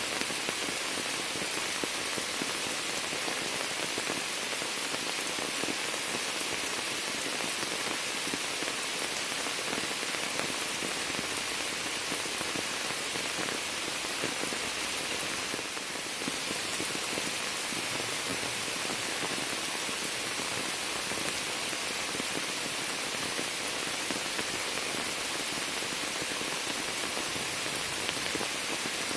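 Steady rain pattering onto standing floodwater and the leaves of an overhanging shrub: a dense, even hiss of countless drops.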